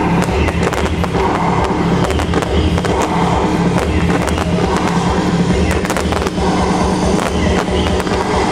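Fireworks going off in quick succession, a dense run of sharp pops and crackles, over loud trance music with a steady beat played through the show's sound system.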